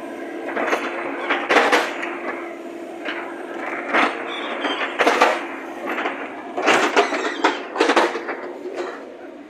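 JCB backhoe loader's diesel engine running with a steady hum, broken by a string of sharp, irregular knocks and clanks as the machine works.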